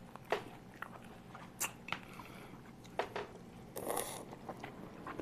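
Close-up eating sounds: people biting into and chewing pan-fried buns (shuijianbao), with a few small clicks scattered through. A louder bite comes about four seconds in.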